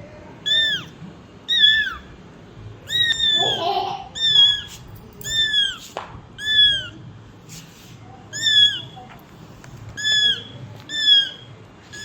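A kitten mewing over and over: about ten short, high-pitched mews, each dropping in pitch at the end, about a second apart.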